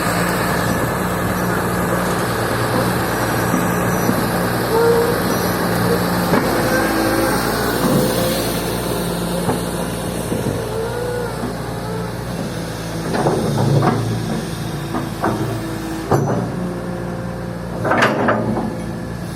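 Freshly overhauled Komatsu PC200-6 excavator with its turbocharged six-cylinder S6D105 diesel running steadily, with short whines coming and going. Several sharp clanks come in the last third, the loudest near the end.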